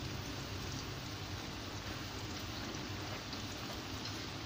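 Seasoned broth boiling in a wok: a steady fine bubbling and crackling, with a low steady hum underneath.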